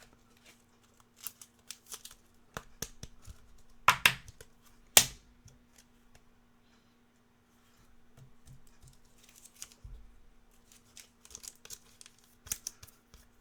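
Hands handling trading cards and pack wrappers: scattered clicks and rustles, with two louder sharp snaps about four and five seconds in.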